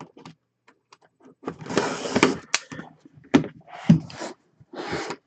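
Seals on a cardboard box being torn and the box pried open: several short rasping rips and knocks, the longest lasting about a second, starting about a second and a half in.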